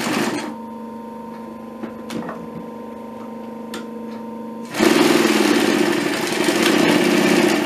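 Pfaff 335 industrial cylinder-arm sewing machine: its motor hums steadily while the machine stands, then about five seconds in it sews a run of stitches through 3 mm leather for nearly three seconds before stopping.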